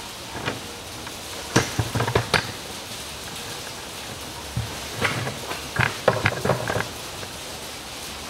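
Two bursts of sharp clicking and knocking, about two seconds in and again around five to seven seconds in, from metal tools and parts being handled in a car's engine bay, over a steady background hiss.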